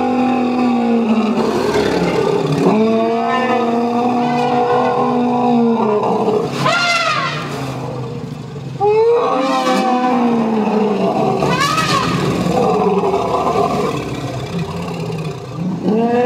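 Asian elephants calling in excitement at a greeting: several long, held roaring calls, broken by a few high trumpets that rise and fall.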